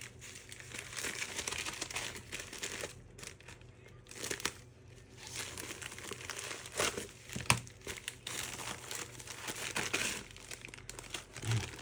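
Plastic packaging crinkling and rustling as a small electronics part is unwrapped from its bag, in spells with short pauses and a few sharp crackles.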